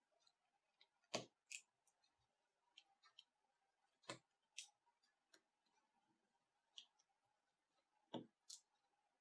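Three pairs of sharp clicks a few seconds apart, each a knock followed a moment later by a higher, lighter click, from small tools and parts being handled while working on a laptop. Faint ticks in between.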